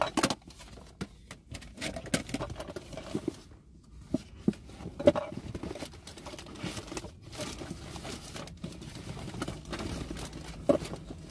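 Clear plastic food-storage containers being handled: lids clicking and plastic knocking at irregular intervals, with the rustle of a paper bag being rummaged through.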